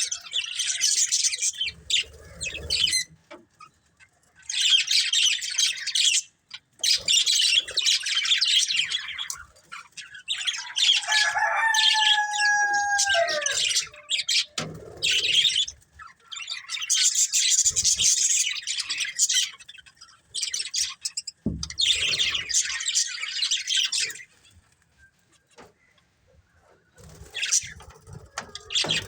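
Budgerigars chattering and chirping in bouts of a few seconds each, with a longer whistled note falling at its end about halfway through and a lull near the end.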